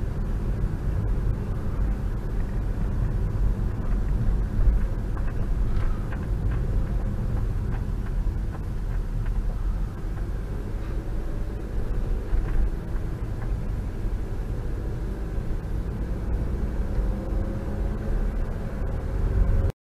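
A car's engine and tyres making a steady low rumble as it drives slowly, picked up by a dash camera inside the car.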